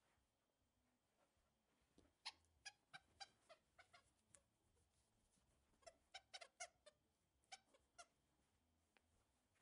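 The squeaker inside an Outward Hound Tiger Seamz Alligator plush dog toy, squeaking as a dog bites down on it: two runs of short squeaks, about eight each, the first starting about two seconds in and the second about six seconds in.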